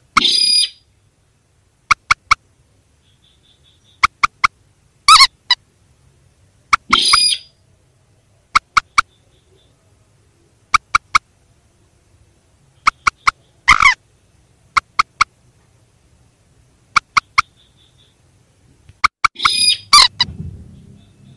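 Recorded rail calls (mandar and sintar), played as a bird lure: short, sharp ticks in pairs and threes, repeated every second or two. They are broken by a few louder, longer harsh calls, the longest near the end.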